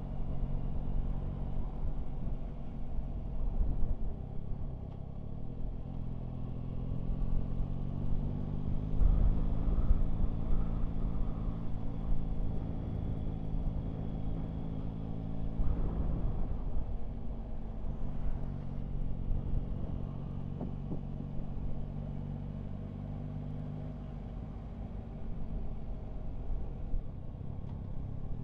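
Yamaha Tracer 9 GT's three-cylinder engine running as the motorcycle rides along, heard from the bike itself. Its note rises about six seconds in, holds, then drops away around sixteen seconds in and again near twenty-four seconds as the throttle eases.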